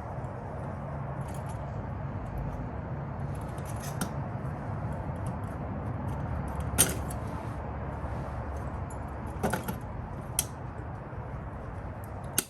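Small metal parts clicking and jingling now and then as they are handled, the sharpest click about seven seconds in, over a steady low hum.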